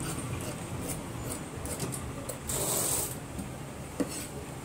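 Large tailor's shears cutting through trouser cloth: a run of short snipping ticks, a louder rustling swish of cloth near the middle, and a sharp click about four seconds in.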